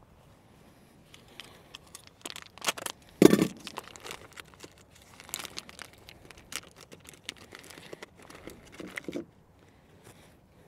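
Plastic lure packet being torn open and crinkled by hand: irregular crackling and rustling, with one louder burst about three seconds in.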